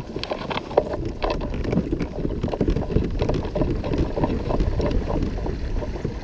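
A Hobie Outback pedal kayak moving through calm water as it is pedalled around, with water washing at the hull and many small clicks and knocks. Wind rumbles on the microphone.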